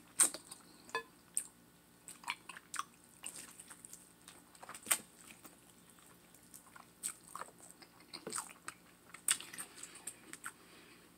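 Close-up eating sounds of a person biting into and chewing a baked turkey leg with sauce: irregular wet smacks and clicks of the mouth.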